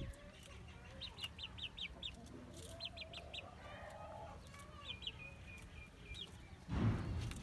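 Chicken clucking softly in its coop, with several bursts of quick high-pitched chirps. A short rustling noise near the end is the loudest sound.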